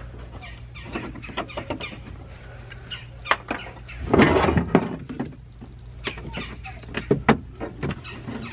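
Plastic push-pin fasteners and trim panel on a Kawasaki KRX 1000 being worked loose with a small tool: scattered sharp clicks and plastic knocks, with a loud spell of scraping and rattling about four seconds in. A steady low hum runs underneath.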